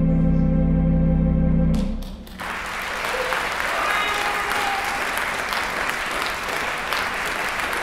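Theatre organ holding a final sustained chord that cuts off about two seconds in, followed by audience applause with a few cheers.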